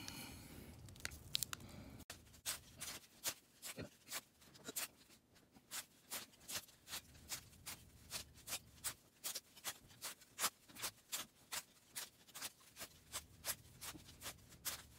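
Wax-paper baseball card pack wrappers being torn open and crinkled, with the cards being handled, heard as a run of short, crisp crackles at about three a second.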